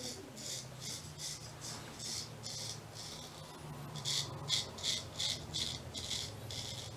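Straight razor scraping through lathered stubble in short strokes, a quick scratchy rasp with each pass of the blade. The strokes come roughly two or three a second, louder and quicker in the second half.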